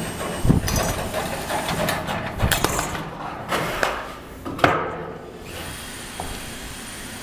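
Knocks and clattering from hands-on construction work, with tools and building materials being handled and struck. There are sharp knocks about half a second in, again around two and a half seconds, and again near four and a half seconds, and it settles to a quieter background after about five and a half seconds.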